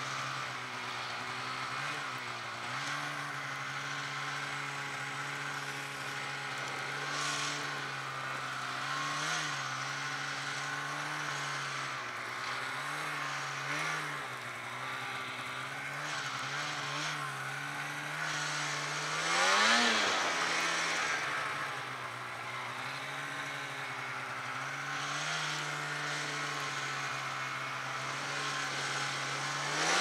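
Snowmobile engine running at a steady pitch, with several small dips and rises in revs. About twenty seconds in it revs up sharply and drops back, the loudest moment.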